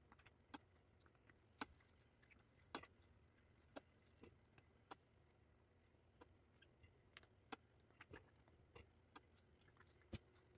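Near silence with faint, scattered clicks and taps of a metal spoon against a steel pot and a plastic container as cream sauce is ladled over graham crackers and spread.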